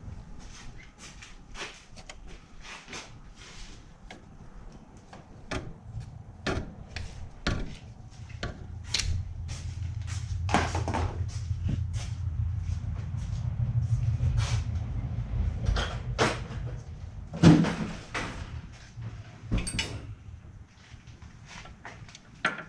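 Metal tools and parts clinking and knocking under a car, scattered irregular knocks with a low steady hum through the middle and one louder knock a little before the end.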